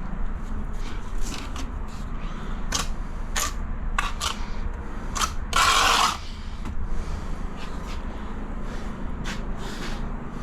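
Tiling work: scattered clicks and taps of tiles and tools being handled, with one louder scrape lasting about half a second near the middle, over a steady low hum.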